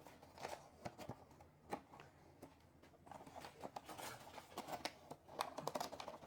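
Faint, scattered taps, clicks and scraping rustles of kitchen utensils and a sieve as flour is scooped and sifted for a cake batter, busiest about three seconds in and again near the end.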